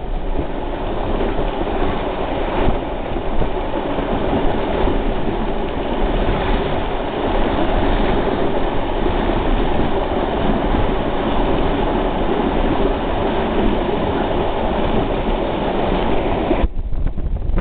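Train running along the track, heard from on board: a steady rumble of wheels and carriage. The higher part of the noise drops away about a second before the end.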